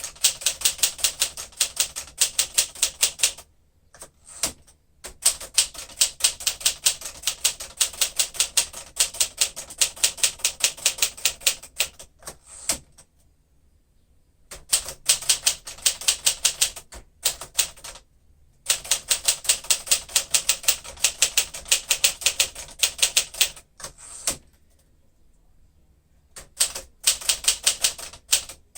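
A 1953 Smith-Corona Super manual typewriter being typed on in quick, even runs of key strikes, each a sharp clack. The runs break off for a second or two several times, with only a lone strike or two in some of the gaps.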